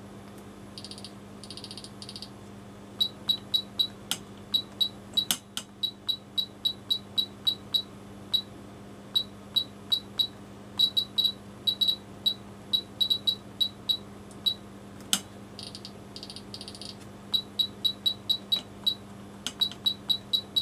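Agilent E3649A power supply's front-panel beeper giving short, high beeps as its push buttons are pressed, in quick runs of about three or four a second, with a few longer buzzing beeps and some sharp clicks. A steady low hum sits underneath.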